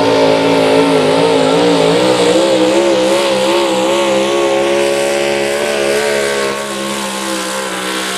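Pulling truck's engine at full throttle as it drags the weight-transfer sled down the track. Its pitch wavers up and down for the first few seconds, then holds steadier.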